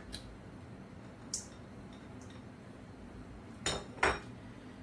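Kitchen utensils and dishes clinking: a light tap about a second in, then two sharper clinks near the end, about half a second apart.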